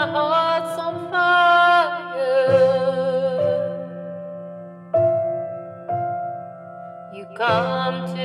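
A solo voice singing a slow ballad over a held keyboard chord, with vibrato on the long notes. The voice drops out in the middle and comes back near the end.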